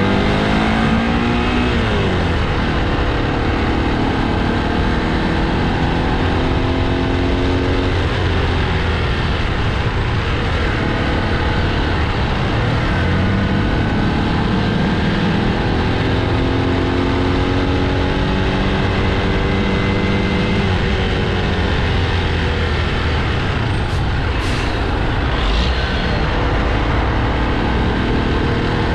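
Motorcycle engine accelerating and shifting through the gears, its pitch rising and dropping back several times over steady wind and road noise, with traffic alongside. Near the end there is a brief sharp hiss and high squeal.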